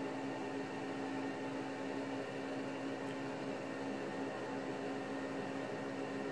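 Steady room tone: a constant low hum with a faint hiss, unchanging throughout.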